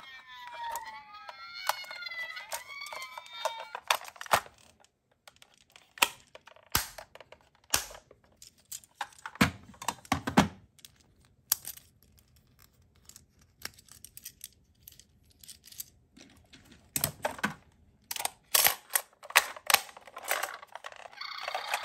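A toy ambulance's electronic siren plays with sweeping, wailing pitch and stops about four seconds in. After that come scattered clicks and knocks of plastic toy vehicles being picked up, turned over and set down.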